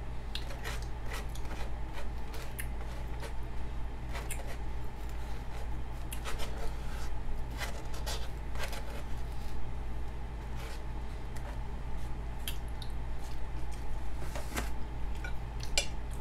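A person eating close to the microphone: wet chewing and mouth smacks with scattered sharp clicks of a fork against a takeout container, irregular throughout, over a steady low hum.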